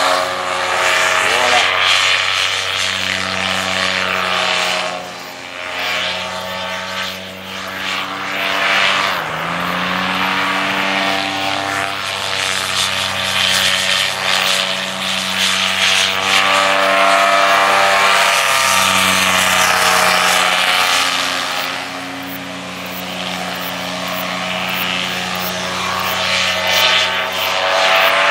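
Paramotor engine and propeller running at varying throttle as the machine flies low past, its buzzing pitch rising and falling; the pitch climbs about ten seconds in, and the sound fades somewhat around five and twenty-two seconds in.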